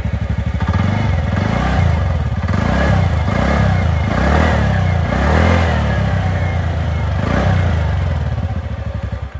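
TVS Ntorq 125 scooter's 124.8 cc single-cylinder four-stroke fuel-injected engine, heard at the exhaust. It idles, then the throttle is blipped several times so the revs rise and fall, and it settles back to idle near the end.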